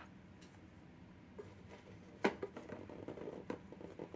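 Hands handling clear plastic containers: one sharp plastic click a little over two seconds in, then faint light taps and rustles.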